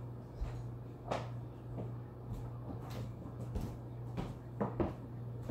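Scattered light knocks and clicks of household handling in a kitchen, about nine spread unevenly and the loudest just before the end, over a steady low hum.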